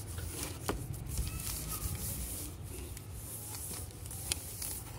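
Sheet of paper rubbing and rustling against a cardboard box as it is pressed down by hand and pasted on, with scattered light clicks and taps.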